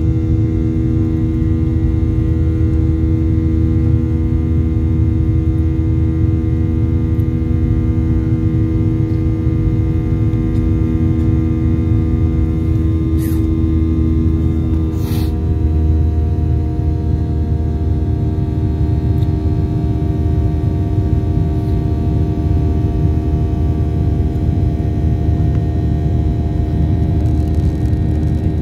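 Jet airliner cabin noise during the climb after take-off: the Boeing 737-800's CFM56 turbofan engines droning steadily, a deep rumble under a set of steady whining tones. About halfway through the tones shift and settle into a slightly different engine note, just after two brief clicks.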